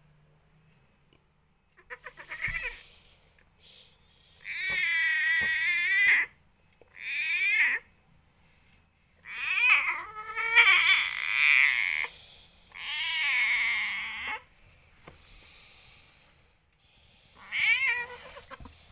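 Domestic cat in labour yowling: about six long, wavering meows with short pauses between them, several lasting more than a second.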